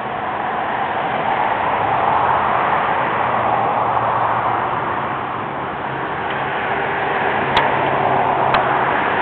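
Road traffic passing on the street by the crossing, a steady rush that swells, eases and builds again, with two sharp clicks about a second apart near the end.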